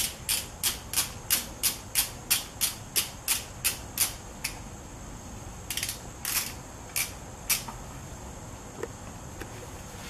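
Hand tool clicking as the magnetic drain plug of a Ducati Sport 1000S engine is unscrewed with a 10 mm hex key: a steady run of sharp clicks, about three a second for some four seconds, then a few scattered clicks.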